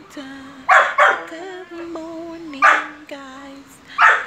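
Dog barking, four sharp barks spaced unevenly, two close together about a second in and two more near the middle and end, over a steady, slightly wavering whine-like tone.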